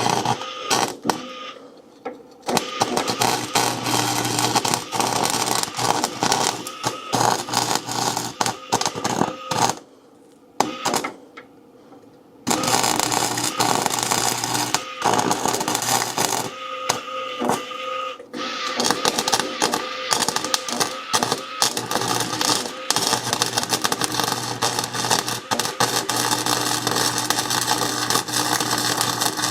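Welder laying weld beads on patch metal on a truck frame: a dense, steady crackle with a low electrical hum under it. It stops briefly about two seconds in, pauses for about two seconds around the middle, and breaks again shortly after before running on.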